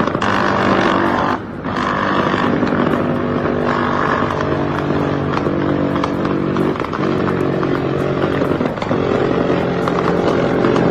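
A motor running with a steady droning pitch that shifts up and down a few times, with a brief drop in level about a second and a half in.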